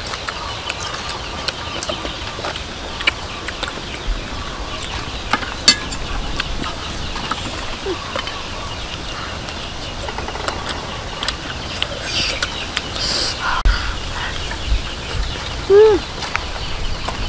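Chickens clucking nearby, with one short call near the end, over the clicks and smacks of eating: chewing and a spoon tapping a plate.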